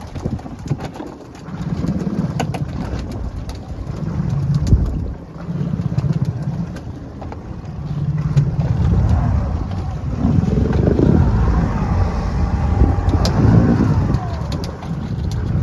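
Boat motor running at sea, with wind rumbling on the microphone and the sound swelling and easing unevenly, and a few sharp knocks.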